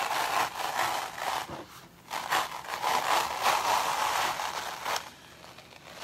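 Sticky Chalk Couture silk-screen transfer being peeled off a board wet with chalk paste: a noisy peel in two long pulls, with a short break about two seconds in, stopping about five seconds in.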